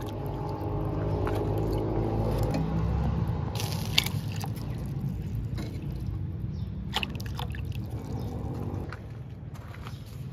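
Water being ladled from one steel cooking pot into another, pouring and splashing, with a few sharp metal clinks, loudest about four seconds in and again near seven.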